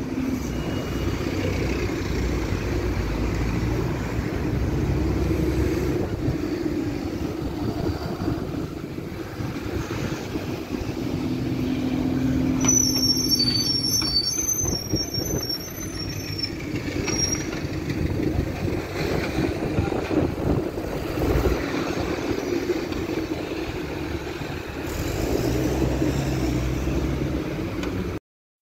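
Road traffic passing close by: cars and buses running with engine hum and tyre noise. About halfway through comes a high, wavering squeal lasting a few seconds, and the sound cuts out briefly near the end.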